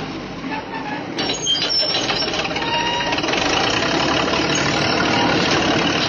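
Sound effect of a heavy bulldozer engine running, dubbed in for a toy bulldozer, growing gradually louder.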